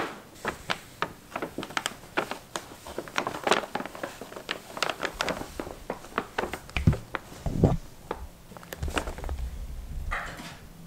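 A cat playing inside a paper shopping bag: the stiff paper crackles and rustles in quick, irregular crinkles. The bag lands with a sharp thump at the very start, and there are a couple of dull thuds about seven seconds in.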